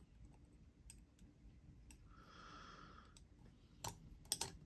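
Faint clicks and taps of tiny knife screws and parts being handled on a parts tray, with a quick cluster of sharper clicks near the end and a brief soft hiss about halfway.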